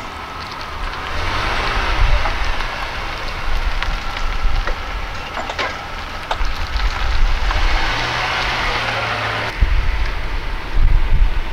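A Pontiac Grand Am sedan pulling away and driving off across a gritty paved lot: a steady rush of tyre and road noise with scattered small clicks, over a low rumble. The rush eases about nine and a half seconds in.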